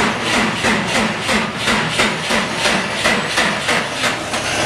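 Turbocharged Subaru Impreza WRX flat-four being cranked over by its starter slowly and rhythmically, about four compression beats a second, the sign of a dead battery.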